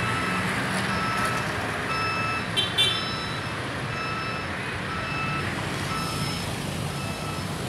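Heavy construction vehicle's reversing alarm beeping about once a second, each beep just under half a second long, over steady street traffic and engine rumble. A short high chirp sounds about two and a half seconds in.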